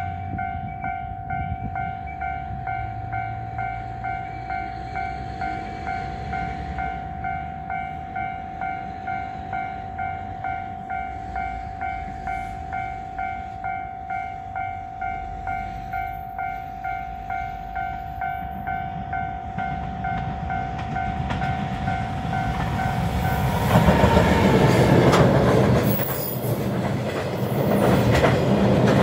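Japanese level-crossing warning bell ringing in an even repeated ding, a little under two strikes a second, over the low rumble of an approaching freight train. About 24 s in, the EF210 electric locomotive and its container wagons pass close by and drown it out, the wheels clattering over the rail joints.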